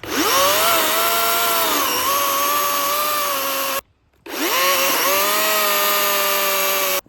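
Battery-powered chainsaw revving up twice, its motor whine rising to speed and then cutting out abruptly each time: the saw's battery is dead.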